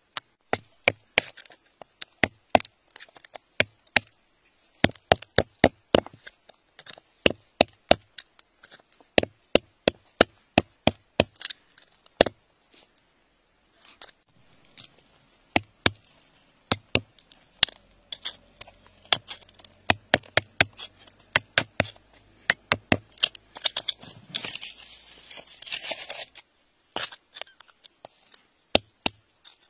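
Metal tool digging into gravelly soil, making sharp clicks and scrapes as it strikes grit and small stones. The clicks come irregularly, often two or three close together, with a short pause near the middle. A longer scrape comes near the end.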